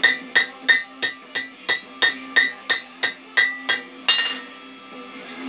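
Hand hammer striking a red-hot steel rod over an anvil's horn, about three blows a second, each with a bright metallic anvil ring, as the rod's end is bent into a loop. The blows stop about four seconds in.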